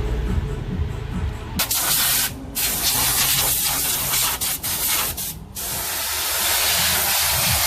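A steady hissing spray, as of pressurised air or liquid, that starts suddenly about a second and a half in and cuts out briefly twice. Before it, a low steady motor rumble.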